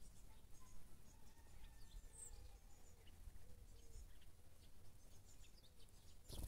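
Quiet garden ambience: small birds chirp faintly with short, scattered calls over a low steady rumble. A louder sudden noise comes right at the very end.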